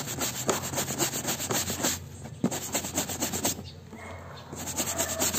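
Stiff-bristled scrub brush scrubbing a soapy lanyard on a plastic washboard in rapid back-and-forth strokes, stopping briefly about two seconds in and again around four seconds, then starting up again.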